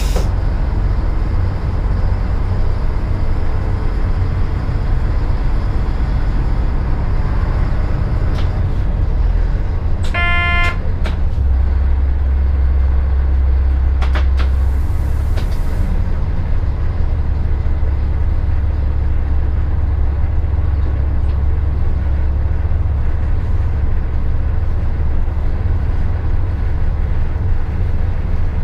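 Class 650 (Stadler Regio-Shuttle RS1) diesel railcar heard from its cab while running along the line: a steady low engine and rail rumble. There is one short horn blast about ten seconds in, and a brief hiss a few seconds later.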